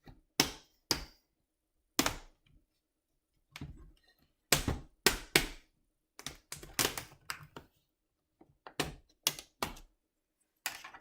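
Plastic screen bezel of an HP 17-ak012nr laptop being pried off, its clips snapping loose in a string of clicks and snaps at irregular intervals, some in quick clusters.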